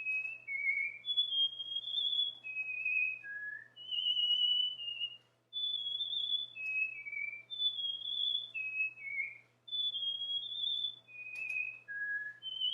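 Cockatiel singing: a run of clear whistled notes, each about half a second long, jumping between higher and lower pitches with small slides, with a short break about five and a half seconds in.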